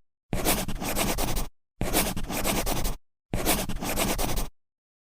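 Scratchy noise in three bursts of a little over a second each, cut off into dead silence between them, then silence from about four and a half seconds in.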